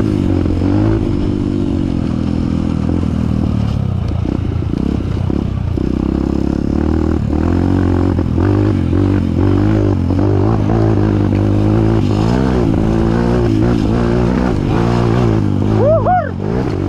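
Trail motorcycle engine running under changing throttle as it rides over rough ground, its pitch rising and falling again and again, with some rattling of the bike over bumps.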